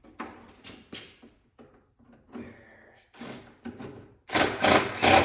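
Fasteners being fitted and tightened under a car: scattered scrapes and clicks of metal parts and tools. About four seconds in comes a louder, noisier stretch of tightening in several quick strokes.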